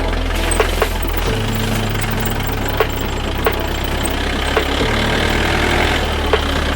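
A vehicle engine running steadily at low revs, its low tone stepping to a new pitch about a second in and again near the end, with scattered sharp clicks over it.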